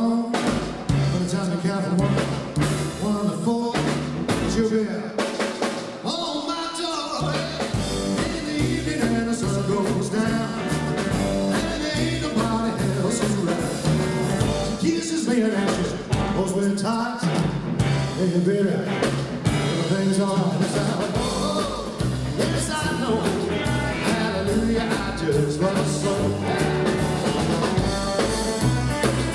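Live rockabilly band playing: a male voice singing over an electric hollow-body guitar, an upright bass and a drum kit.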